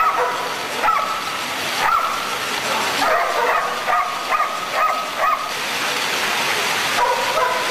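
Pit bull–type dogs yelping and whining, many short high-pitched calls in quick succession, strained at each other as they run on treadmills, over a steady background noise.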